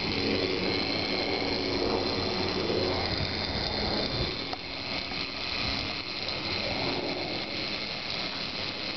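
Zipline trolley pulleys running along the steel cable, a steady whirring hiss mixed with wind, easing off about halfway through.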